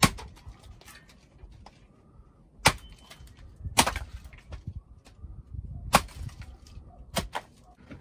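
Axe splitting firewood on a wooden chopping block: five sharp strikes at uneven intervals, with lighter knocks of wood in between.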